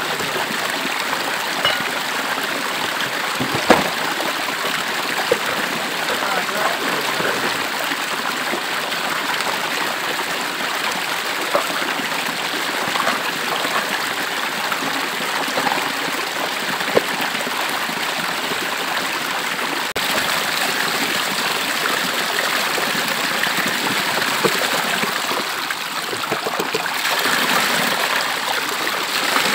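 Steady rush of a shallow river running over rocks, with a few sharp knocks, the loudest about four seconds in.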